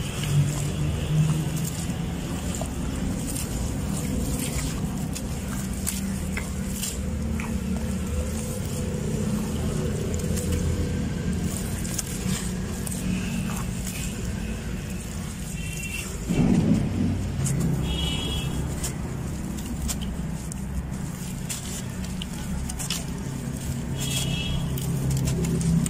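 Hands squeezing and crumbling wet sand-cement lumps in a basin of water: gritty crunching and squelching, with many small crackles over a steady low rumble.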